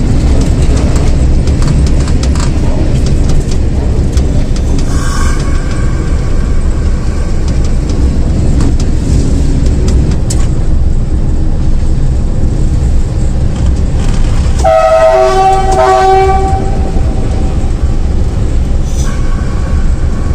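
Diesel locomotive running under way, heard from its cab, with a heavy steady engine rumble. Its horn sounds three times: a short toot about five seconds in, a longer blast of about two seconds partway through, and another short toot near the end.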